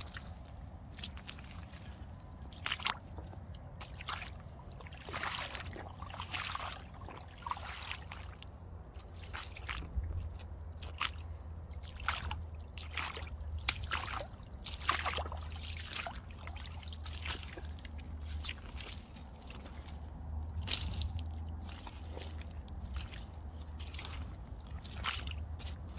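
Aigle rubber boots squelching and sloshing in wet mud and puddle water: many irregular sucking squishes and splashes as the feet shift and step, over a steady low hum.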